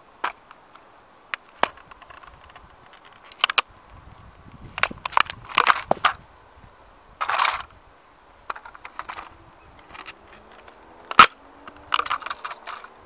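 A hard plastic toy police motorbike being stomped and crushed under heavy platform boots: a series of sharp plastic cracks and crunches against the pavement, irregularly spaced, with a longer crunch midway and the loudest snap near the end.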